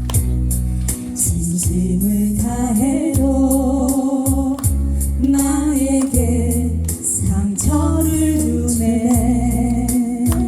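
Slow trot-ballad music from a backing track: a steady beat under a melody of long, wavering held notes.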